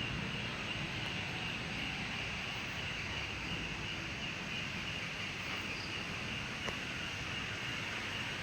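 Steady night chorus of crickets and other insects in the forest, a constant high shrill over a low hiss, with one faint click about two-thirds of the way in.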